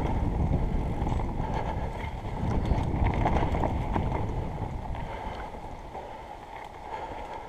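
Mountain bike rolling down a dirt trail: tyre noise and the rattle of the bike over the ground, mixed with wind on a helmet-mounted camera's microphone. It fades as the bike slows down.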